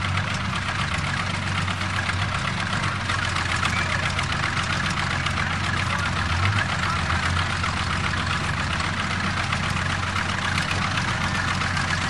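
Crawler bulldozer engine running steadily and hard under load while towing a stuck SUV out of the snow.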